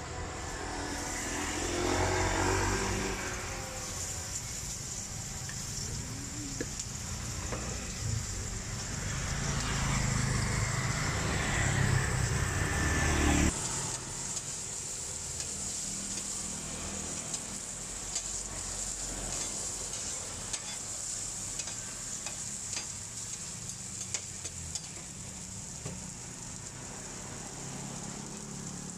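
Sliced onions and oil sizzling on a hot steel flat-top griddle and being turned with a metal spatula: a steady high hiss with scattered crackles. A low rumble sits under it in the first half and stops abruptly about halfway through.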